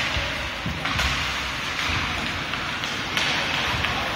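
Ice hockey rink sounds during play: scattered taps and thuds of sticks, puck and boards over a steady hiss of skates on ice.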